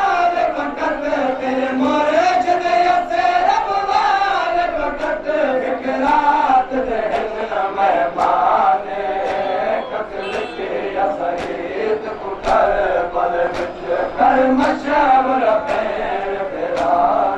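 Men chanting a Saraiki noha (a Shia lament) together, its long lines rising and falling, over a steady beat of hands striking chests in matam.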